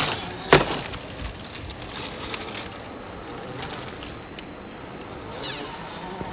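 Axial SCX10 III radio-controlled scale rock crawler working over rocks. A sharp knock about half a second in as tyres or chassis strike stone, then a few lighter clicks, and a short rising whine from the electric drive near the end.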